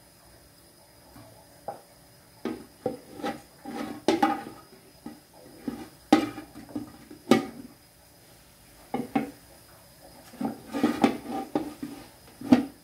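Cookware clattering at a stove: an aluminium pot lid and pans being handled, with a wooden spatula. It makes a run of irregular sharp knocks and clanks, loudest about six, seven and twelve and a half seconds in.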